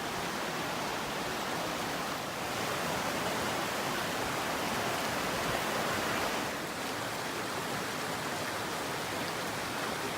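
Rushing water of a fast mountain stream or cascade, a steady even rush with no breaks.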